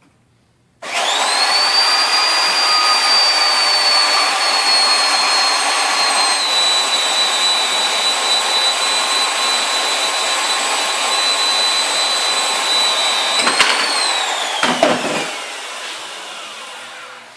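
Handheld electric power tool cutting into steel railroad rail. Its high motor whine starts about a second in and sags slightly in pitch under the load. Near the end it rises briefly, then winds down over a few seconds as it is switched off.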